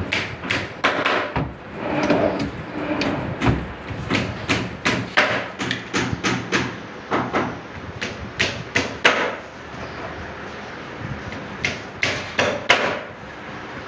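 Irregular hammer blows on wood, sharp knocks coming roughly one to three a second.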